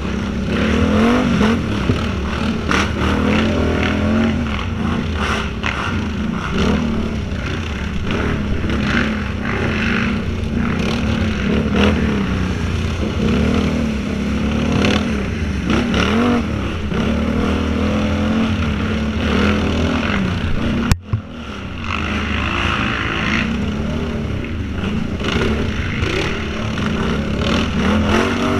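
Twin-cylinder quad (ATV) engine of over 550 cc running under load, its revs rising and falling again and again. About three-quarters of the way through there is one sharp click and a momentary drop in the sound.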